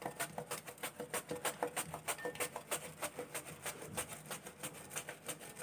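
Raw banana being pushed back and forth across the slicing blade of a metal grater, a quick even run of scraping strokes about four a second.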